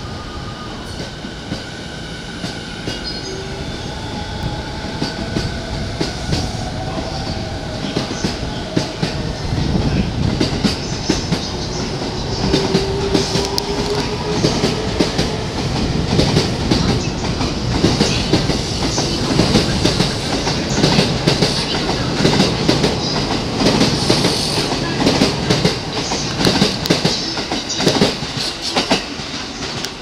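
A 15-car E217-series electric train pulling out and gathering speed. Its traction motors give a whine that rises in pitch over the first several seconds. Then the clickety-clack of wheels over rail joints grows louder as the cars roll past.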